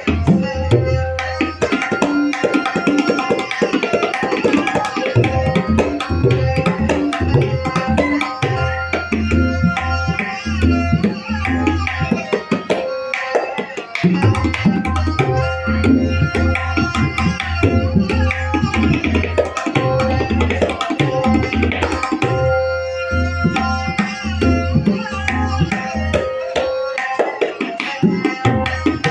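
A tabla pair played in a fast, continuous stream of strokes as a sound check of the drums. The right-hand drum (dayan) rings at a steady tuned pitch, and the left-hand bass drum (bayan) adds deep booming strokes. The bass drops out briefly twice, about 12 and 22 seconds in.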